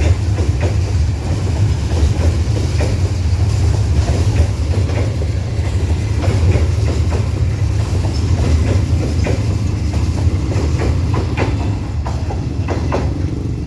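Wagons of a Babaranjang coal train rolling past: a steady low rumble with wheels clattering over the rail joints, easing slightly near the end.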